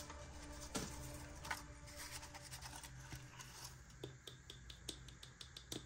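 Faint handling noises: light rubbing and scattered small clicks as a leaked dip powder jar and its packaging are handled, with a quick run of little ticks about four seconds in.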